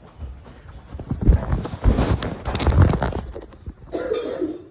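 A woman coughing in a fit of several loud coughs, ending in a short voiced sound near the end. The cough is thought to be part of a cold.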